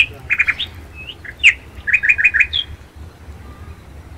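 Songbirds chirping in the garden trees: short high calls and quick runs of notes, busiest in the first three seconds and thinning out after, over a low steady rumble.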